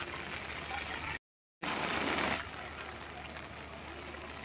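Steady hiss of rain falling outdoors. It breaks off briefly about a second in, returns with a short louder rush, then settles to a steady hiss.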